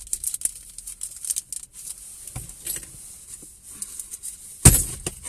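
Small packaging crinkling and rustling as it is handled, in quick, sharp little crackles, with a single loud thump near the end.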